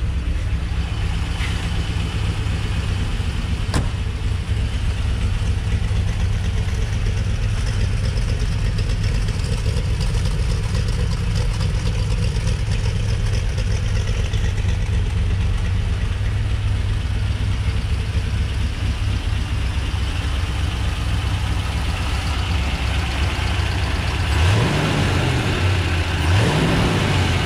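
Warmed-up 1965 Corvette's 327 V8 with Rochester mechanical fuel injection, idling steadily at about 1,000 RPM. Near the end it is revved twice in quick blips.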